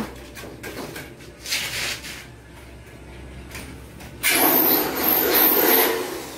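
Faint taps and scrapes of tile work, then about four seconds in a power tool runs for roughly two seconds with a harsh noise and a high whine.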